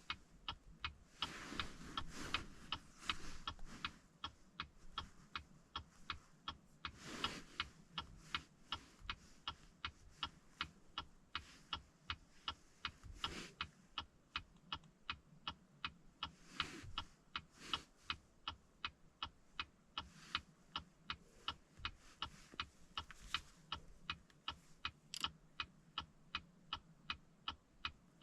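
Steady mechanical ticking, about two ticks a second, with a few softer handling noises in between.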